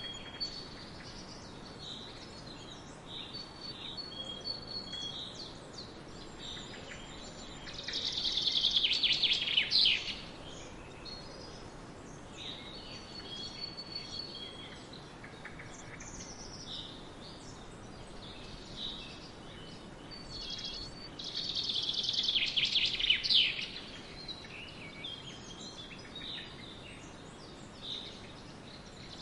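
Forest birds calling and singing, with many short chirps over a steady faint background hiss. Twice, about eight seconds in and again past twenty seconds, a louder song of about two seconds stands out, ending in a quick falling flourish.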